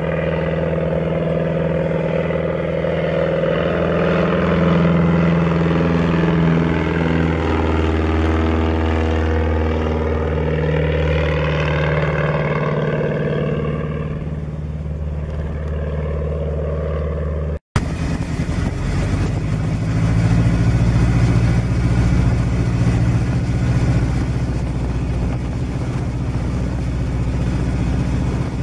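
A small single-engine bush plane's piston engine and propeller droning as it flies low past, the pitch of its drone bending as it goes by. After a sudden break the same kind of engine is heard from inside the cabin, running steadily on the approach to land.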